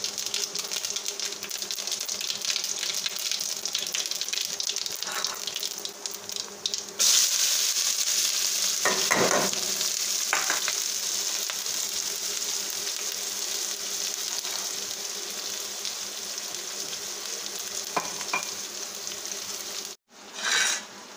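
Onions frying in hot oil in a kadhai, a steady sizzle that jumps louder about seven seconds in as they go into the pan, with a few brief scrapes of stirring. The sizzle cuts off suddenly near the end.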